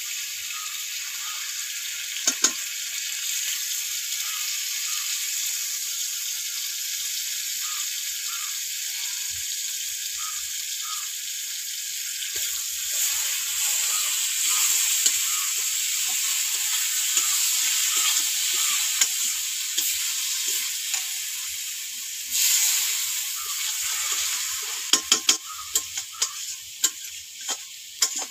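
Food frying in hot oil in a metal wok, sizzling steadily while it is stirred, with the spoon clinking and scraping against the pan now and then. The sizzle swells louder about three-quarters of the way through.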